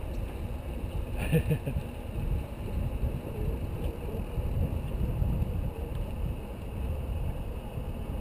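Wind rumbling on a bicycle-mounted action camera's microphone while riding along a paved street, a steady low buffeting noise. A short brief sound breaks in about a second in.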